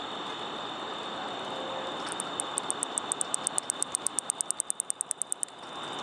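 California angle-winged katydid (Microcentrum californicum) calling: a run of about thirty sharp, high ticks over some three seconds, speeding up from about five to about ten a second, then stopping abruptly. This is the nighttime clicking song of this katydid.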